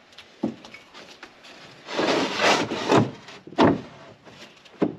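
Thick plastic storage bin being handled and slid into place: a knock about half a second in, a second of scraping and rubbing, then two more knocks, one near the end.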